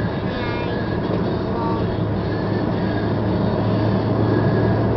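Steady engine and tyre noise of a car cruising at road speed, heard inside the cabin, with a constant low hum.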